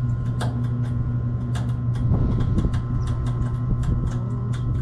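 A vehicle engine running steadily, a low hum, with frequent sharp clicks and rattles over it.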